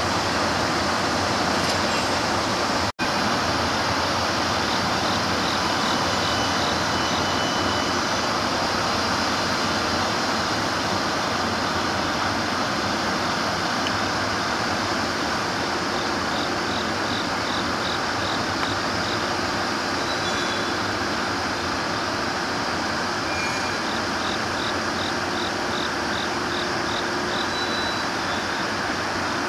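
Steady rushing noise of electric freight locomotives standing in a rail yard, with short runs of faint high chirps now and then. The sound drops out for a moment about three seconds in.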